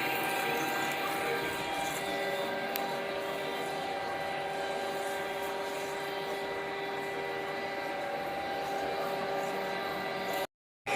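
Kone drilling machine boring with a 50 mm drill on automatic feed: a steady machine hum carrying several constant whining tones from the motor and gearing. It cuts off abruptly near the end.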